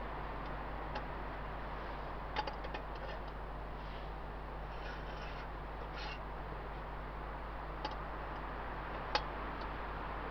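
A few light clicks and taps from small objects being handled at a camp table, over a steady low hiss. A small cluster comes about two and a half seconds in, and the sharpest tap comes near the end.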